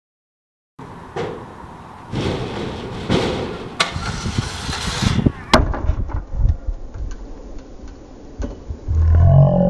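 Stunt scooter wheels rolling on concrete, with several sharp clacks and knocks of the deck and wheels striking the ground. Near the end comes a loud low sound that rises in pitch.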